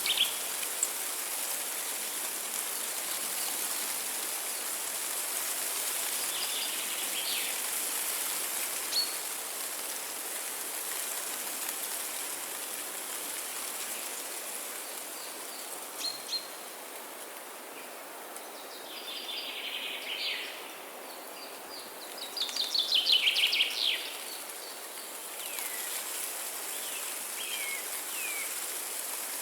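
Forest birds calling over a steady hiss of running water: scattered short chirps and whistled glides, with the loudest, a quick rattling trill, a little past the middle.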